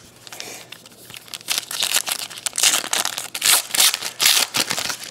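Foil wrapper of a 2011 Prestige football card pack being torn open and crinkled: a quick run of rips and rustles, loudest in the second half.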